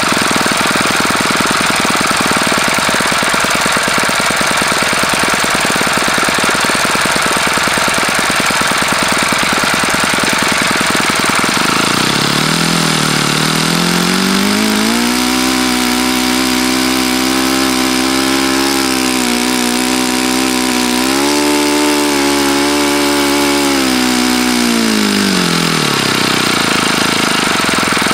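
OS FS-48 Surpass single-cylinder four-stroke glow engine turning a 12x6 propeller. It idles, is opened up about twelve seconds in with a rising note, and holds at high revs for about ten seconds with a brief dip and lift. Near the end it falls back to idle. The owner says the engine has bad bearings.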